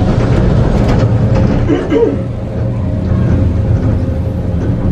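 Inside a Leitner eight-seat detachable gondola cabin as it leaves the station and heads out along the rope: a steady running rumble with a constant hum over it, easing a little about two seconds in.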